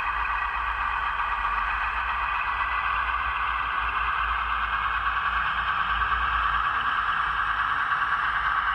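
Sound-decoder recording of a BR Class 15 diesel locomotive's Paxman engine running steadily, played through a model locomotive's small speaker, so it comes through thin with little bass. It grows slightly louder over the last few seconds.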